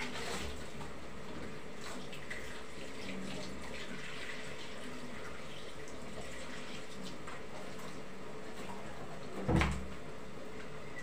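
Water running from a tap into a kitchen sink, with scattered light clinks and one dull thump about nine and a half seconds in.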